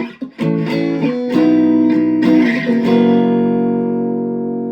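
Kramer electric guitar played through a Boss Katana Mini amp on its crunch channel, pickup selector in the second position. A brief stop near the start, then a quick run of picked notes and chords, with the last chord left ringing and slowly fading.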